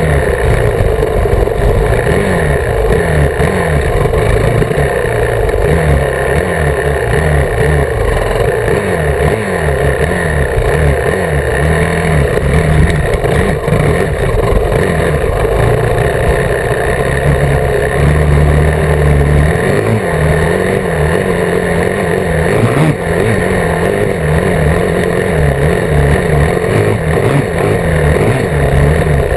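Dirt bike engine on a trail ride, its pitch climbing and dropping over and over as the throttle is worked and gears change, with wind rushing across the microphone.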